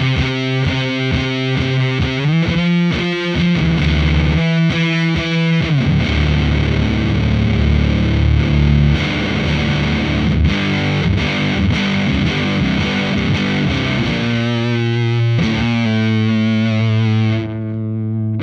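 Electric guitar played through a FuzzHugger FX Lab Ratchet fuzz pedal with its Push (gain) knob turned all the way up, giving a heavily distorted, gated fuzz. It starts with chords chopped in a fast even rhythm, then held notes ring out, and it ends with more struck chords.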